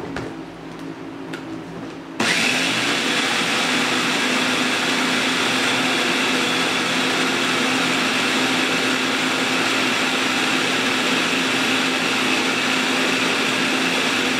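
Mitochiba CH 100 electric food chopper: a light knock as the motor head is set on the bowl, then about two seconds in the motor switches on and runs steadily, its double blade blending pumpkin, eggs, sugar and milk into a liquid.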